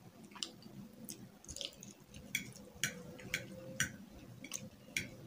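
Two people eating pasta with minced meat: metal forks give a run of light clicks on the plates, about two a second, over soft chewing.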